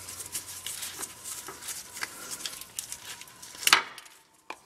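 Light scratching and small clicks of a screwdriver tip prying the old O-ring off a speedometer driven-gear housing, with one sharper click a little before the end.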